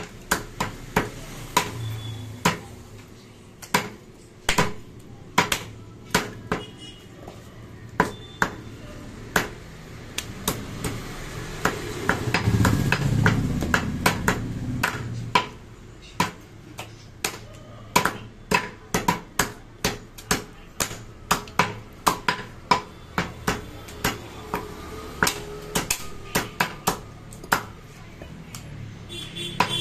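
Two heavy cleavers chopping goat meat and bone on a wooden log chopping block: a long irregular run of sharp chops, about two a second. A low rumbling noise swells for a few seconds about halfway through.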